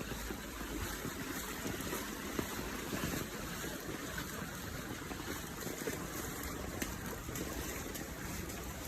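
Floodwater rushing and splashing: a steady wash of water noise with a few brief sharp splashes.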